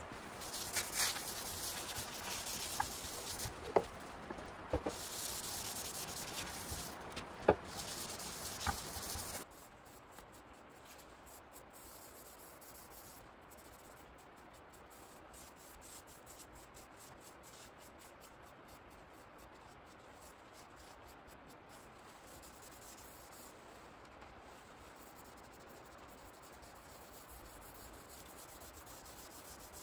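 Hand sanding of a wooden tabletop with sandpaper: a rough scratching hiss with a few sharp knocks. About nine seconds in it drops to much fainter, steady rubbing.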